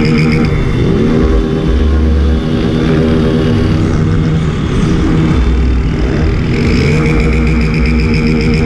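Motorcycles riding in a group, an engine revving up near the start, mixed with background music with guitar.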